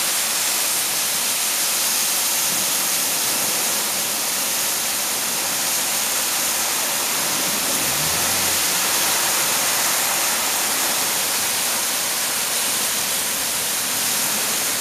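Torrential rain from a microburst thunderstorm: a steady, loud hiss of the downpour mixed with water pouring off a roof, heard through an open screened window.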